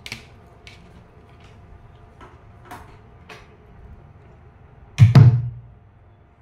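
A home-built TDA2030 5.1 amplifier being switched on. A few faint clicks come first, then about five seconds in a loud, deep thump through the speakers, the amplifier's power-on pop, which dies away within about a second.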